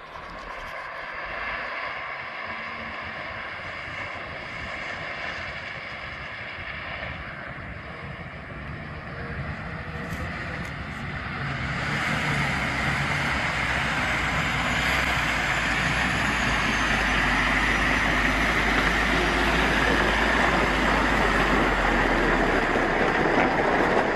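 Diesel engine of a loaded MAN logging truck working as it drives through a river, getting louder as it approaches. From about halfway it is joined by a louder rushing and splashing of water pushed aside by the wheels.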